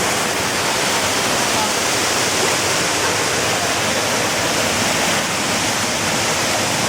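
Mountain waterfall pouring, a steady loud rush of falling water.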